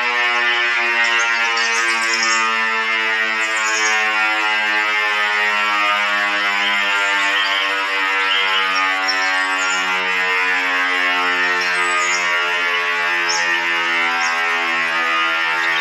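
Synthesized emergency alert alarm: harsh, buzzy electronic tones rich in overtones sound without a break, their low notes stepping between a few pitches every second or two.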